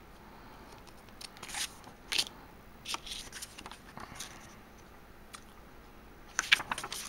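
Crinkly rustles and small clicks from a plastic DVD case and its paper cover insert being handled, in scattered short bursts with a denser cluster near the end.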